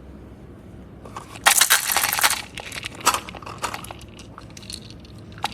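Crunching and crackling: a dense burst about a second and a half in that lasts about a second, followed by a few scattered clicks.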